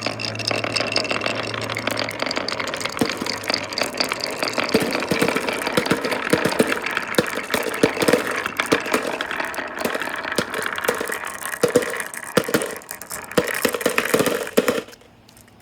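Many marbles rolling down a wooden marble-run track: a continuous rolling rumble thick with clicks and knocks as the balls hit the wood and each other. It stops suddenly near the end, with a few last clicks.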